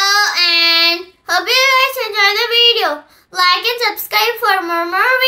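A child singing a short melody in high, held notes, in three phrases with brief breaks between them.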